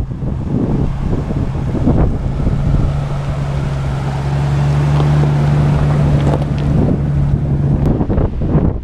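Wind buffeting the microphone over the steady low running of a 1999 Jeep Cherokee XJ's 4.0-litre inline-six as it crawls past on a rocky trail; the engine hum drops out near the end.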